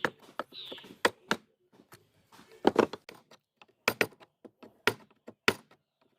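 Wood chisel chopping waste out of a piece of wood, cutting slightly short of the marked line for a 45° joint: a run of sharp, irregular taps and knocks.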